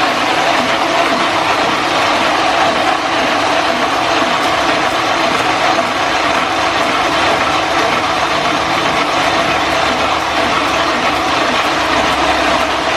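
Type 810 single-colour offset printing press running steadily, a dense continuous clatter of gears and rollers.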